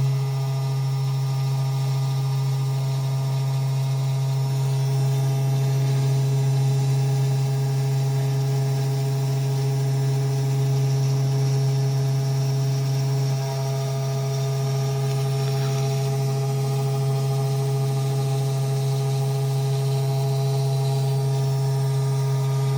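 Small desktop CNC engraving machine running: a steady, loud spindle motor hum, with the axis motors' whine shifting in pitch and stopping and starting as the head moves.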